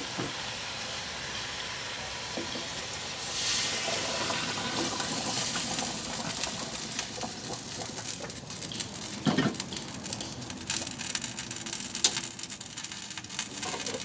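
Coconut milk poured from a metal pot into a pot of fish frying in oil: a gushing splash starting a few seconds in over steady sizzling, then crackling as it heats, with a couple of sharp knocks of metal pot and utensils.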